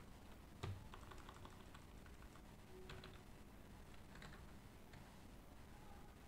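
Faint computer keyboard typing: scattered keystrokes in small clusters, with one louder knock about two-thirds of a second in.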